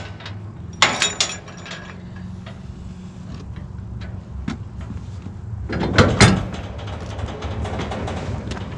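Metal clanks from a steel utility trailer being hitched to a pickup, its coupler and crank jack knocking against the hitch: a few sharp clanks about a second in and two loud knocks about six seconds in, over a steady low hum.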